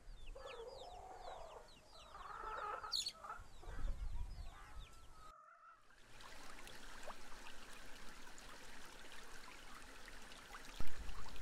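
Hens clucking, with many quick high chirps of small birds over them. About five seconds in this breaks off and gives way to a faint steady hiss of outdoor ambience.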